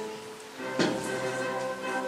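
Instrumental music playing, with held notes and a sharp accent a little under a second in.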